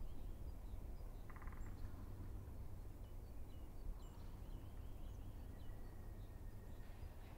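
Outdoor forest ambience: scattered faint, short, high bird chirps, with one brief buzzy call about a second and a half in, over a steady low rumble.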